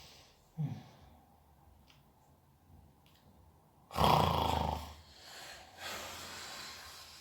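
A sleeping man snoring: a short snort about half a second in, then a loud rasping snore about four seconds in, trailing off into noisy breaths.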